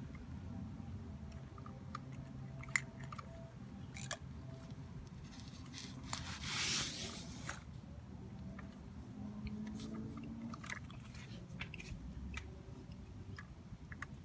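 Small clicks and ticks of a diecast model garbage truck's side-loader arm and toy cart being moved by hand, with one sharper click about three seconds in and a longer rustle about six to seven seconds in.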